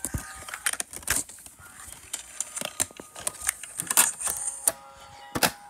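Handling noise of a DVD and its plastic case: irregular plastic clicks and knocks with rustling as the disc is taken out and set onto the spindle of a portable DVD player. A louder sharp click comes near the end.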